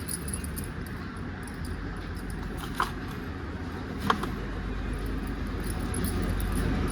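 Kitchen handling sounds while seasoning minced meat: two short light clinks, a little over a second apart, over a steady low background hum.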